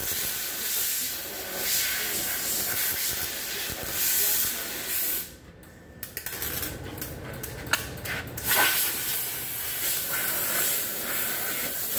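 MIG welder arc crackling and hissing steadily as a patch is welded into the rusted body panel of a 1978 GMC truck. It breaks off about five seconds in. A quieter hiss with a low hum and a few sharp clicks follows.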